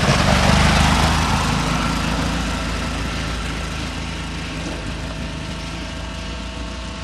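Off-road buggy engine running hard, loudest about half a second in and then fading steadily as it moves away.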